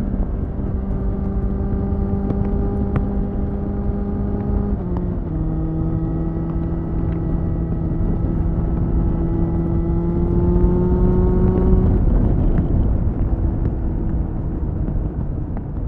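2001 Suzuki GSF 600 Bandit's inline-four engine with a BOS slip-on exhaust, running at steady high revs on the move. The note drops suddenly about five seconds in as the bike shifts up, then climbs slowly; about twelve seconds in the engine note fades under the rush of wind on the microphone.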